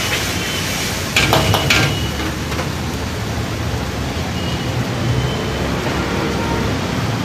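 A metal utensil clanks against a wok about four times in quick succession a little over a second in, during stir-frying of noodles on a gas burner. Underneath is a steady rumble of road traffic.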